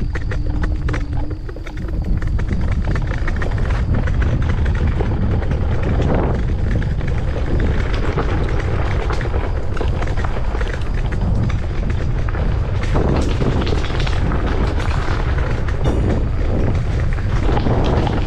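MS Energy X10 electric scooter riding downhill over a rough dirt track: a continuous loud rumble of wind buffeting and tyre and frame rattle, with scattered knocks from bumps.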